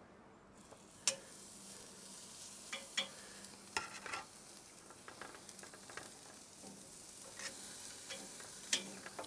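Thin steaks sizzling as they are laid on a very hot cast-iron grill grate over charcoal, the hiss rising about half a second in. A few sharp clicks cut through it.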